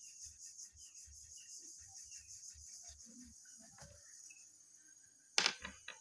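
Steady high-pitched chirring of insects, with soft, rapid, regular taps of colouring strokes on paper. One sharp click comes about five and a half seconds in.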